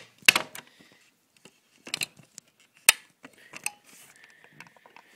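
Several sharp clicks and clacks of a staple gun being handled as it is unloaded, spaced unevenly, with rustling of the phone being moved between them.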